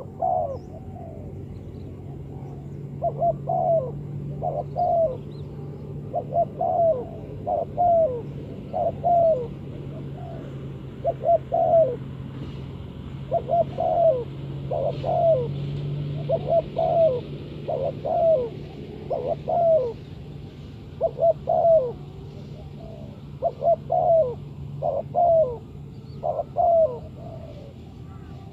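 Spotted dove cooing, repeating short phrases of two or three falling notes every second or two. A steady low hum runs underneath.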